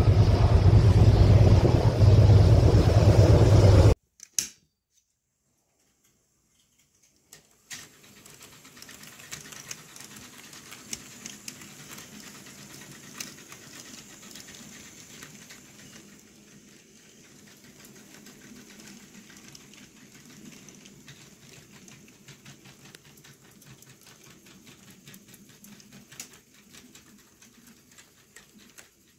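HO scale model freight train rolling along its track: a steady low electric-motor hum with many small, light clicks of the wheels over the rail joints. It starts about eight seconds in, after a few seconds of loud wind buffeting on the microphone and a brief silence.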